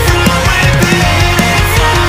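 Post-hardcore/metalcore band recording playing: loud distorted guitars moving through a riff over steady drum hits.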